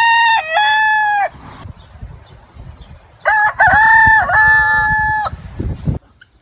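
Rooster crowing: the tail of one long crow, then a full crow about three seconds in. A steady high hiss runs behind the second crow and cuts off suddenly near the end.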